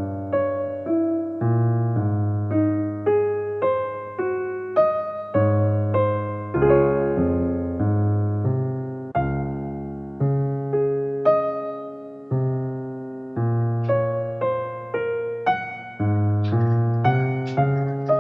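Soft background music played on electric piano: slow, gentle notes, each struck and left to fade.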